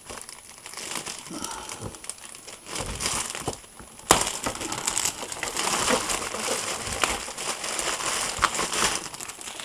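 Clear plastic packaging bag crumpled and crinkled by hand, with a sharp crack about four seconds in and denser crinkling after it.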